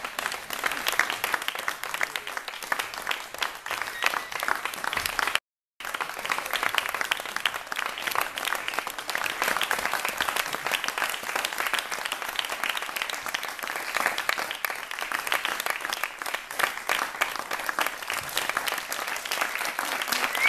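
Theatre audience applauding, a dense, steady clapping from many hands, joined by the cast clapping on stage. The sound cuts out completely for about half a second a little over five seconds in.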